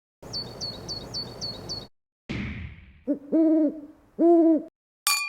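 Separate short sounds cut together: a high bird call of six quick chirps, a brief whoosh, then two owl hoots about a second apart, ending with a sharp click and a ringing chime.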